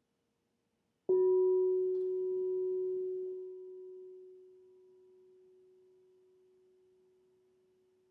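Quartz crystal singing bowl struck once about a second in, ringing a single pure low tone with a fainter higher overtone that slowly fades away.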